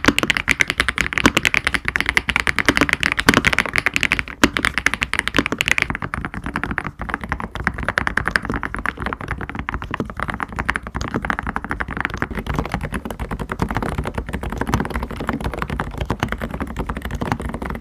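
Rapid typing on an SPM Ara 87 tenkeyless mechanical keyboard, played as a typing sound test of its switches. For about the first six seconds the keystrokes are brighter and more clacky, then they turn duller and softer.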